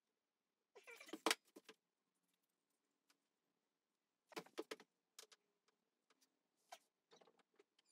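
Faint handling noise at a wall: a few short bursts of small clicks and scrapes, about a second in, around four and a half seconds in, and again near the end, with near silence between.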